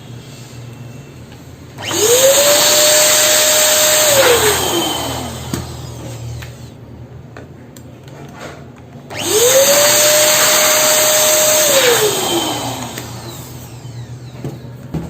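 Electric balloon inflator pump switched on twice, each run about three seconds: the motor whine rises quickly, holds steady over a rush of air, then falls away as the motor spins down.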